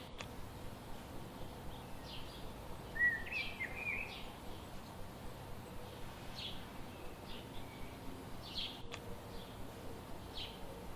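Birds chirping in short repeated calls about once a second, with one louder warbling phrase about three seconds in, over a steady background hiss.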